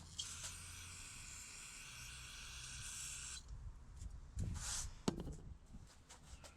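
Aerosol can of carburetor cleaner spraying in one steady hiss for about three seconds onto a throttle body caked with carbon, cutting off abruptly. A shorter hiss and a sharp click follow.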